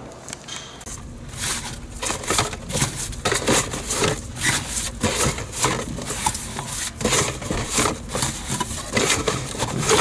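Close-up rustling and scraping of a black fabric bag being rummaged through by hand, in quick irregular strokes.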